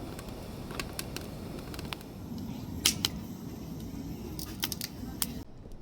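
Wood fire crackling in a fire pit, with irregular sharp pops over a steady low rush of flame. It stops abruptly near the end.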